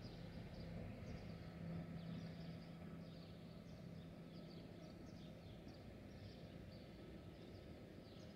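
Faint chorus of many sparrows chirping: short, high chirps overlapping throughout, over a steady low hum.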